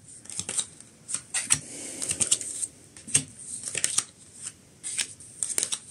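Tarot cards being handled: a string of irregular light clicks and rustles.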